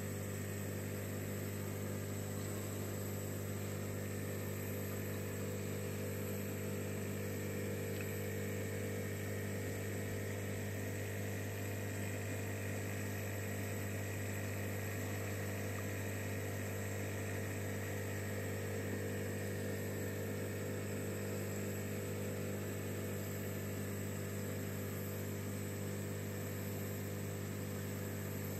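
Aquarium pump humming steadily, a low electric drone with no change.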